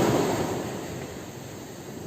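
Sea waves: the rush of a wave's surf fading away over the first second, leaving a quieter wash of water.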